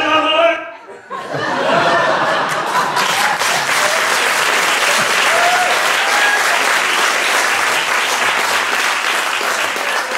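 Men's voices hold a final sung note that stops about half a second in, then a theatre audience applauds steadily for the rest of the time, with a few shouts mixed in.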